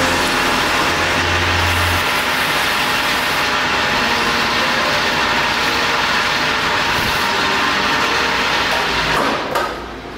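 Lathe running, a steady, dense mechanical noise that drops away sharply about nine and a half seconds in.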